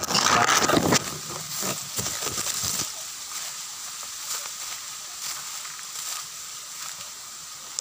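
Dry fallen bamboo leaves rustling and crackling underfoot and against the phone. It is loudest in the first second, then turns into irregular crackles, and after about three seconds settles to a faint hiss with an occasional snap.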